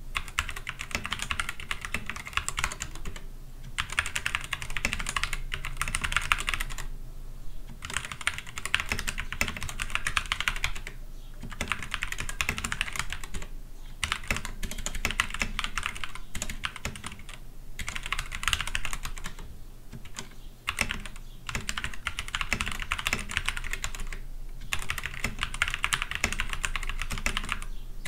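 Typing on an Akko 3084 mechanical keyboard: rapid key clicks in runs of a few seconds, with short pauses between them.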